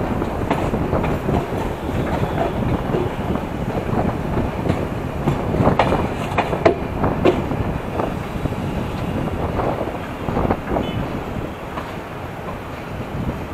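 Passenger train carriage wheels rumbling and clattering over rail joints and points, heard from the open window of the rear carriage, with a run of sharp knocks about halfway through and again near the end. The noise eases off toward the end.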